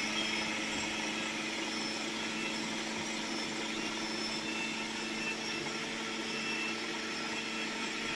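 Kitchen mixer grinder running steadily with an even hum, grinding cooked coriander, tomato, onion and chillies into chutney paste; it stops abruptly at the very end.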